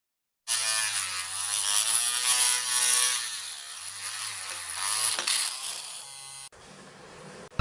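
Homemade 12-volt drill's small DC motor running with a buzzing whine whose pitch wavers up and down as its speed changes, cutting off abruptly near the end.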